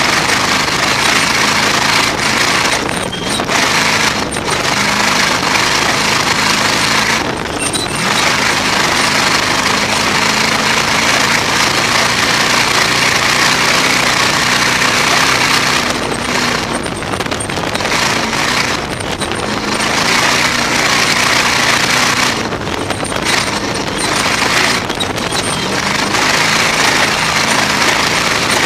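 Onboard sound of a rock-race off-road car driven flat out across desert terrain: the engine running hard under a loud rush of wind and tyre noise in the open cockpit, with brief dips in the noise every few seconds.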